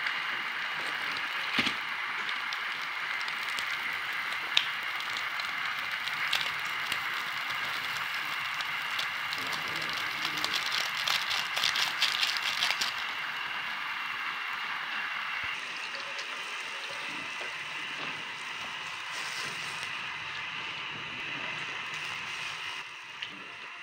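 Steady hiss of water heating in a wok, with fine crackling clicks about ten to thirteen seconds in as a seasoning sachet is squeezed out over it.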